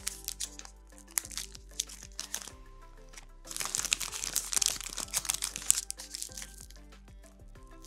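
Plastic cling film crinkling around a sandwich as it is handled: scattered crackles at first, then a louder continuous crinkling for about three seconds in the middle. Soft background music plays throughout.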